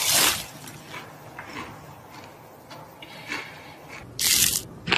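Crisp crunching of a bite into fried chicken: a loud crunch at the start, a few faint crunches after it, and another loud crunch near the end.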